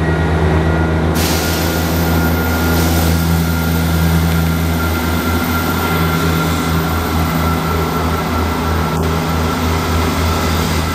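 Class 158 diesel multiple unit moving out past the platform: a steady low diesel engine drone with a thin higher whine, joined by a hiss about a second in. In the second half the low engine note turns pulsing as the unit draws away.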